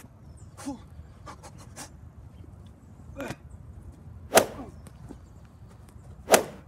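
Quick swishes and hits of a staged fistfight: several faint ones in the first two seconds, then a stronger one at about three seconds and two loud, sharp ones at about four and a half and six and a half seconds.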